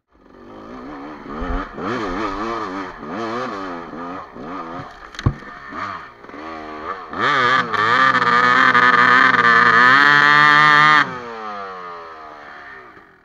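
Enduro dirt bike engine revved in repeated blips, with one sharp knock about five seconds in. The engine is then held at high revs for about four seconds, drops off sharply, and winds down until it fades.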